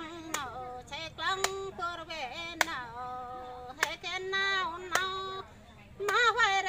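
A woman singing an unaccompanied song with long held notes, clapping her hands about once a second to keep time.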